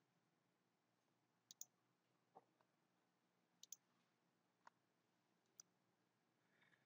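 Faint computer mouse clicks over near silence: about seven short clicks in the space of four seconds, including two quick double-clicks.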